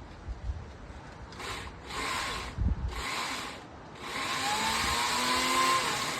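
Small electric chainsaw run in short bursts: three brief runs, then a longer one of about two seconds with its motor whine rising slightly. A low thump comes about two and a half seconds in.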